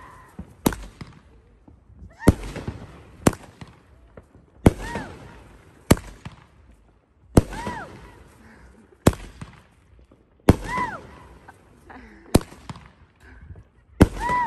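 Consumer aerial fireworks going off in a steady string: about ten sharp bangs, roughly one every second and a half, each followed by a fading crackle.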